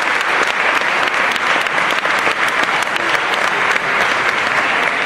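Audience applauding steadily, many people clapping at once at the end of a dance performance.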